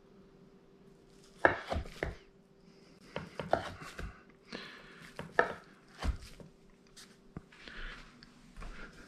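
Knife cutting a soft potato-and-onion Spanish tortilla into cubes, each cut ending in a knock on the cutting board: about a dozen irregular strokes, starting about a second and a half in.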